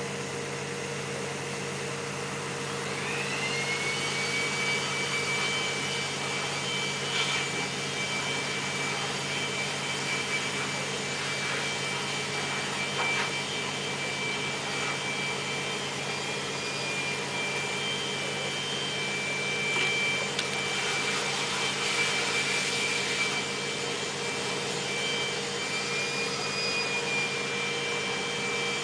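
Steady machine hum; about three seconds in an electric motor spins up into a high steady whine that runs on, with a few light knocks.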